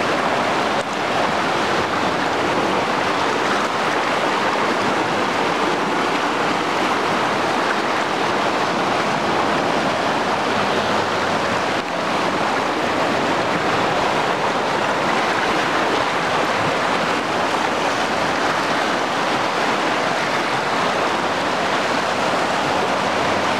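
River in flood: a steady, loud rush of turbulent, muddy floodwater churning past in standing waves.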